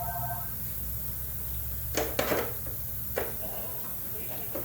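Metal hand tools clinking: a quick cluster of sharp clinks about two seconds in, then single clinks near three seconds and near the end, over a low steady hum. A steady tone stops about half a second in.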